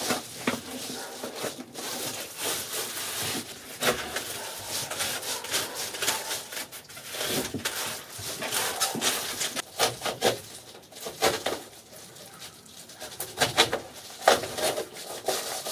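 Irregular rustling, crinkling and knocking from hands working foil-faced bubble insulation and a coil of electrical cable along a wall.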